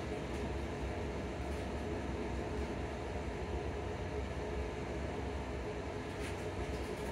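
Steady running noise inside a ScotRail Class 334 electric multiple unit on the move: a continuous low rumble of wheels on rail with a faint steady hum.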